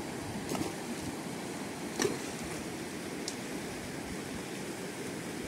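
Muddy floodwater of a flash flood rushing steadily down a stony desert wadi, a continuous rushing noise, with a few brief ticks, the loudest about two seconds in.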